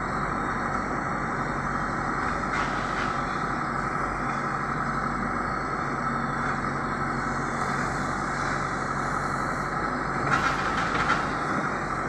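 Diesel engine of a Terex TLB 740S backhoe loader running steadily while the backhoe arm digs and swings soil. There are short knocks about three seconds in and again near the end.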